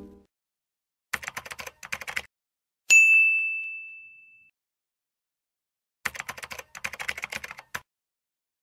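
Keyboard typing sound effect in two short runs of rapid key clicks, with a single bell ding between them that rings out and fades over about a second and a half.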